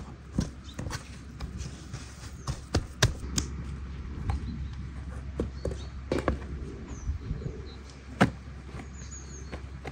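Raw beef slices being gathered up by hand from a wooden cutting board: irregular soft slaps and knocks of meat and hands on wood. The loudest knock comes about eight seconds in.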